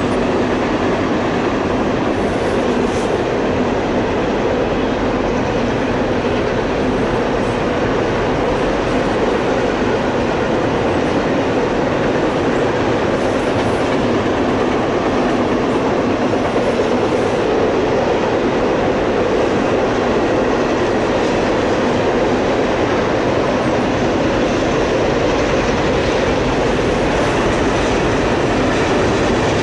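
Double-stack intermodal container freight train rolling past, a steady rumble of steel wheels on the rails that holds without a break as the well cars go by.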